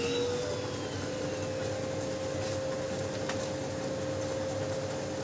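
Brother DCP-L2540DW laser printer's motor running with a steady whine that settles in pitch in the first second, with a couple of faint clicks and no grinding from the gears: the printer is running normally.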